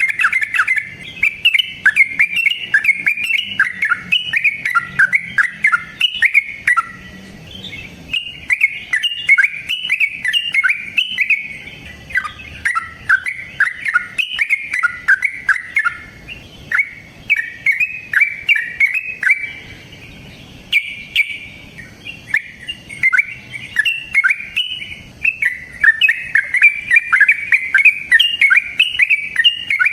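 Yellow-vented bulbul (trucukan) singing its long rapid 'ropel' song. Fast runs of short, quickly rising and falling notes come in several phrases, with brief pauses between them.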